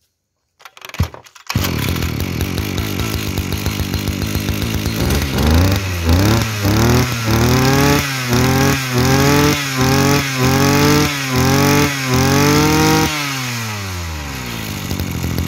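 Kawasaki TD33 brush cutter's small two-stroke engine starts about a second in and idles. It is then revved in a run of about ten quick rises and falls, and drops back to idle near the end.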